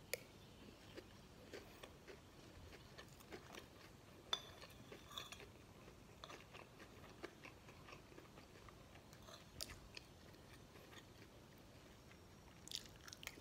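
Quiet chewing of fried rice, with scattered soft clicks and clinks of a metal spoon and fork against a ceramic plate, the sharpest about four seconds in.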